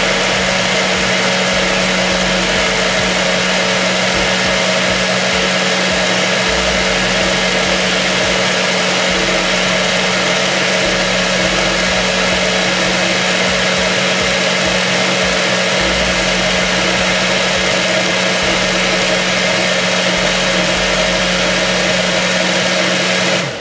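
Ninja countertop blender running at high speed on its Extract program, blending a smoothie of fruit with pits, spinach and ice into liquid. The motor gives a loud, steady whir with a constant hum and cuts off abruptly at the very end.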